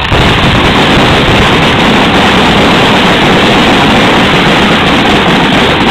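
Fireworks finale barrage: shells bursting so rapidly that the bangs merge into one continuous, very loud din.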